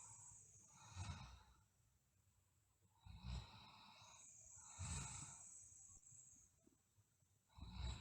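Faint, slow breathing of a sleeping girl, with a light low snore in the breaths. There are four breaths, about two seconds apart.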